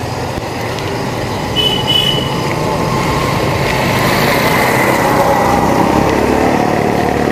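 Small motorcycle engine running and growing slightly louder as it approaches, over steady road noise from riding a bicycle. A brief high double beep sounds about two seconds in.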